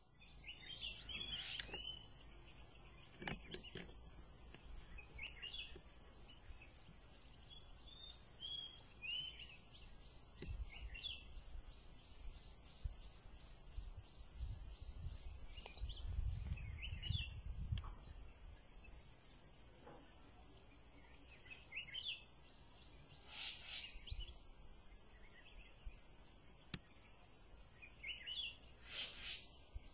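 Steady high-pitched drone of insects, with scattered short chirping calls over it and a few low bumps and rumbles around the middle.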